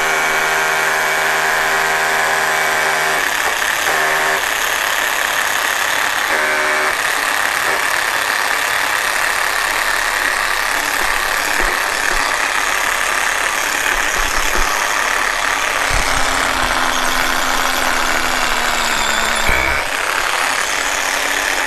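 Cordless hammer drill running. It starts with a steady motor whine, which after a few seconds gives way to a harsh hammering rattle as it bores into concrete. This is the drill said to sound good until it starts drilling, then lose performance under load.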